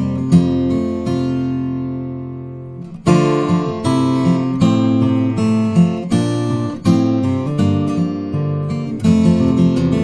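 Background music of acoustic guitar strumming chords. One chord is left ringing and fading away, then the strumming picks up again about three seconds in.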